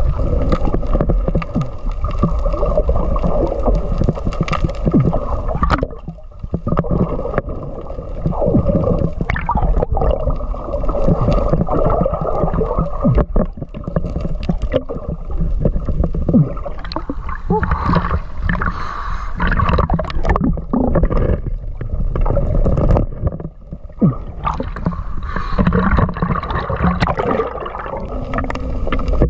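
Muffled rushing and sloshing of water around an underwater camera carried by a swimming diver, with irregular knocks against the housing. The sound dips briefly about six seconds in and again near 24 seconds.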